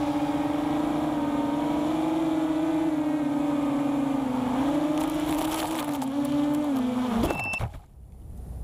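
FPV quadcopter's four brushless motors (Lumenier 2206 2000 kV spinning 6045 two-blade props) giving a buzzing whine that wavers up and down with the throttle, then dropping and cutting out about seven seconds in as the quad lands. A short high beep follows.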